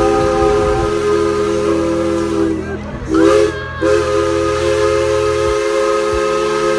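Steam locomotive whistle blowing long blasts, sounding a chord of several notes at once. It breaks off briefly about three seconds in, gives a short louder blast, and then holds on again. A low rumble from the train lies underneath for most of it.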